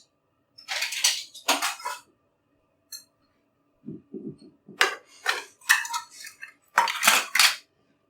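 Kitchen dishes and utensils clattering as they are handled and set down, in two short runs of knocks and clinks.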